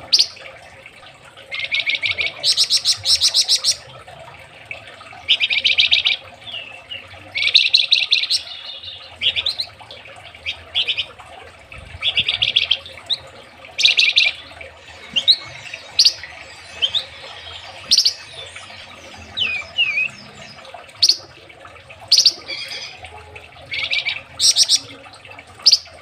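Caged flamboyan songbird singing: loud bursts of rapid, tightly packed repeated notes every second or two, with short high whistled slurs in between.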